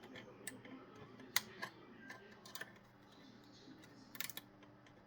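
Faint, scattered small clicks and taps from handling the backlight ribbon and its connector inside a car radio head unit, with a short cluster of clicks about four seconds in.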